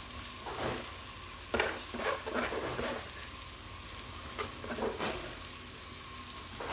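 Noodles and egg frying in a pan, with a steady sizzle, while a spatula scrapes and stirs them in short, irregular strokes, most of them between about one and a half and three seconds in.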